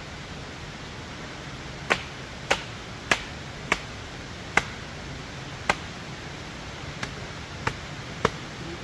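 About nine short, sharp knocks, spaced roughly half a second to a second apart, the first four fairly regular, over a steady hiss.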